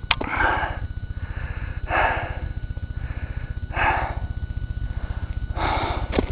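A hiker breathing hard, four heavy breaths about two seconds apart, over a steady low rumble of wind on the microphone.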